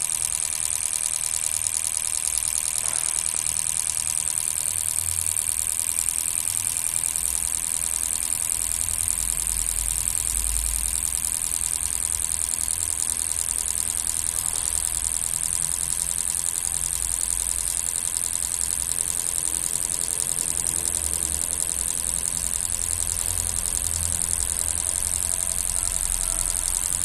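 Fuel-injector test bench running a flow-equalisation test: the injectors pulse continuously and spray test fluid into the graduated cylinders. A steady high-pitched hiss sits over a low rumble.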